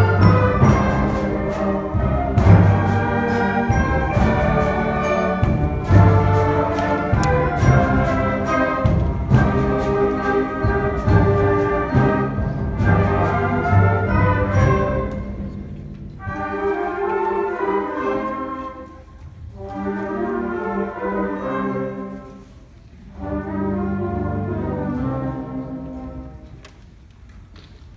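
Student concert band of brass, saxophones and clarinets playing a loud passage with sharp drum-and-brass accents about every two seconds. About halfway in it drops to three softer, swelling phrases that each die away, the last fading out near the end as the piece closes.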